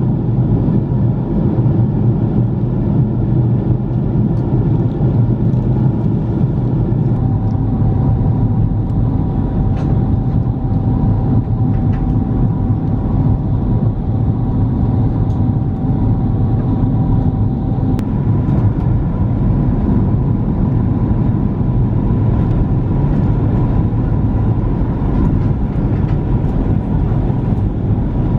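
Steady loud rumble of an airliner cabin in motion: the Airbus A330-300's engines and airflow heard from inside. A faint steady tone joins in for about ten seconds in the middle.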